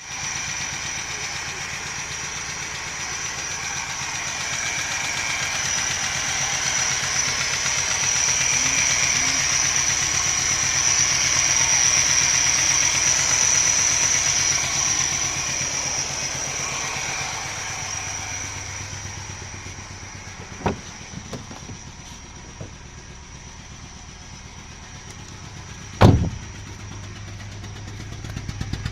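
Nissan NP200 engine running with a steady high-pitched whine over the engine note, a bad noise that the owner traces to the accessory pulley system even after replacing one pulley. The whine swells, then fades after about 18 seconds, and a loud sharp knock comes near the end.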